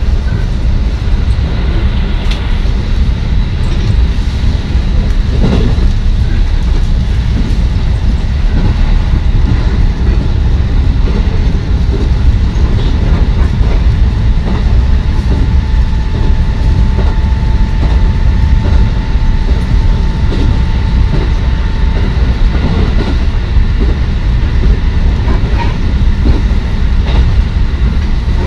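Electric commuter train heard from inside the passenger car while running at speed: a steady loud rumble of wheels on rails with scattered faint clicks from the track. A thin steady tone sounds for several seconds past the middle.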